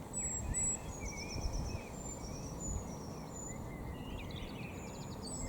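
Several small birds chirping and whistling in short calls, over a steady low background rumble.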